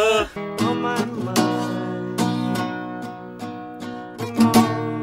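Acoustic guitar played slowly, chords strummed or plucked one at a time and left to ring out, starting about half a second in.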